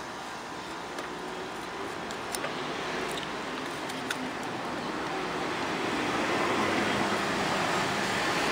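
Steady traffic-like rumble and hiss of a passing vehicle, growing louder from about halfway through, with a few faint small clicks in the first half.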